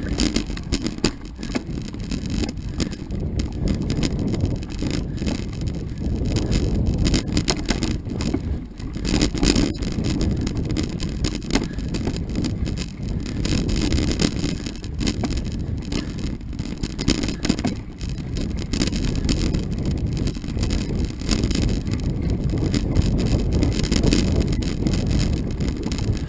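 Mountain bike riding down a dirt singletrack: tyres rolling over dirt and roots, the bike and camera rattling with many small knocks over bumps, and wind buffeting the microphone.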